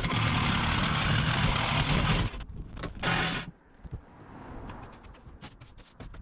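Power saw cutting through the steel roof panel of a van: one loud run of a little over two seconds, then a shorter burst that stops sharply about three and a half seconds in.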